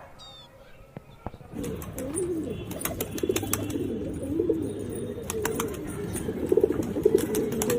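Pigeons cooing, several low rising-and-falling coos overlapping, starting about a second and a half in. Sharp clicks are scattered through the cooing.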